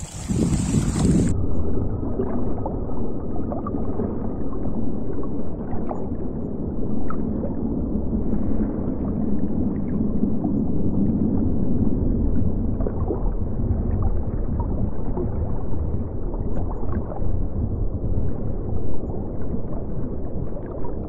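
Muffled underwater noise picked up by a submerged camera: a dull, steady rush and rumble of water with scattered faint clicks. About a second in it cuts in abruptly from open-air wind and sea noise.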